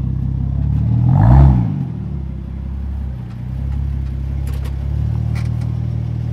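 MK4 Toyota Supra's engine idling, with one quick rev about a second in, then settling back to a steady idle.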